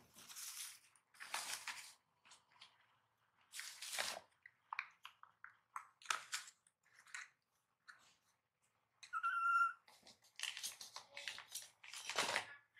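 A baby macaque gives one short, steady squeaky call about nine seconds in, amid intermittent rustling and scuffing of cloth as it moves on the mat.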